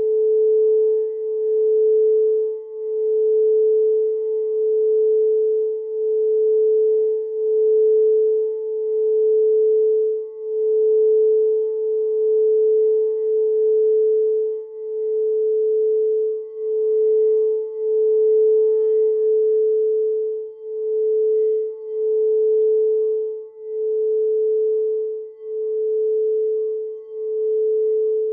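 A frosted quartz crystal singing bowl sung by a mallet circling its rim: one sustained pure tone that swells and fades in a slow regular pulse, about every two seconds.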